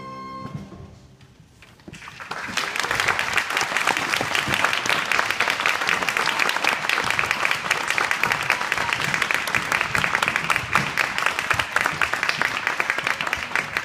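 A string orchestra's last chord dies away, and after a brief hush an audience breaks into applause about two seconds in and keeps clapping steadily.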